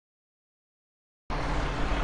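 Dead silence for over a second, then street sound cuts in abruptly: a fire engine's diesel idling close by, with a steady low rumble under a broad hiss of traffic and wind.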